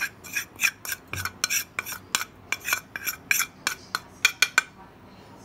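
A small spoon clinking and scraping against dishes in a quick run of sharp taps, about four a second, as seasoning powder is scooped and tipped into a glass bowl. The taps stop a little before the end.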